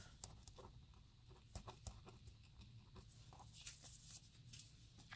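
Faint scratching and tapping of a pen writing on cardstock, with light rustling as the card is handled later on.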